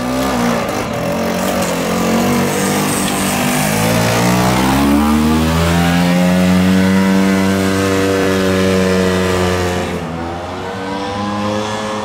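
A 1977 Vespa's 8.8 hp single-cylinder two-stroke engine running hard under heavy load, pulling the scooter up a 35-degree slope. Its note rises over the first several seconds, then holds steady and high. About ten seconds in it turns duller and quieter.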